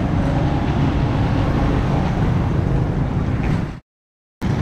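Wind buffeting the microphone as a loud, rough low rumble over street traffic noise. The sound cuts out completely for about half a second near the end.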